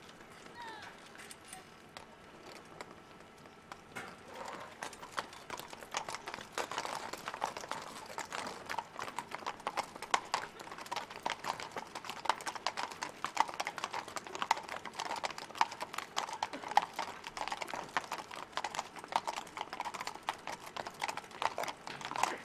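Hooves of several horses clip-clopping as they move across the parade ground, faint at first and growing clearly louder about four seconds in.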